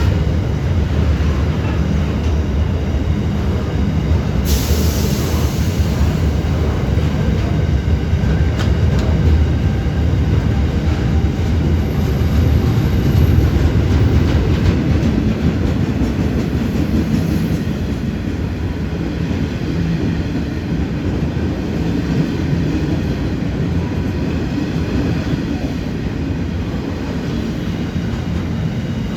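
Freight train rolling past, a steady loud rumble of wheels on the rails, with a brief hiss about four and a half seconds in.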